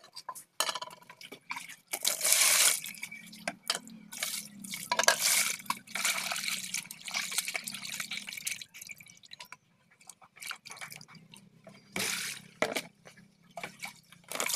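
Raw meat being washed by hand in water in a plastic basin: water splashing, sloshing and dripping in irregular bursts, with a brief lull a little past the middle.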